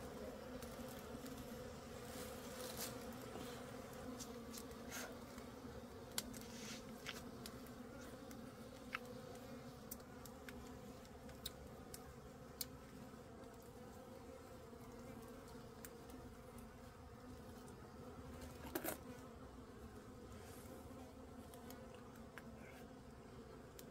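Wild honeybees buzzing steadily around their raided nest, a faint continuous hum. A few small clicks and crackles break in now and then.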